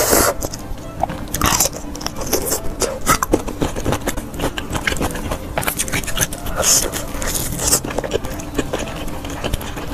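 Close-miked eating of spicy instant fire noodles: a loud slurp right at the start and another about a second and a half in, then wet chewing with many small clicks, and more slurping near the end.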